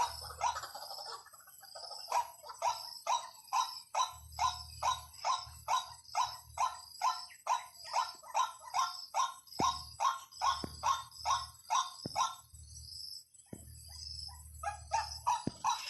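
White-breasted waterhen call played as a decoy: a long run of evenly repeated notes, about two or three a second, that stops near the end and then starts again.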